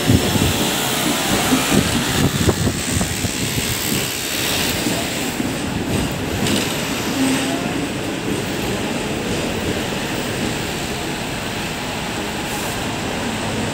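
Hong Kong double-decker tram running along its street track, heard on board: a steady running noise from the car and its wheels on the rails, with a cluster of sharp knocks in the first three seconds.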